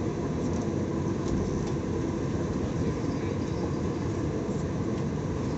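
Utsunomiya Light Rail HU300 low-floor tram running at steady speed, heard from inside the passenger cabin: an even rumble of wheels on rail and running gear, with a faint steady hum over it.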